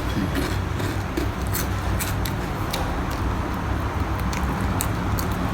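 Chewing crunchy fried pork sticks: a few sharp crunches over a steady low background hum.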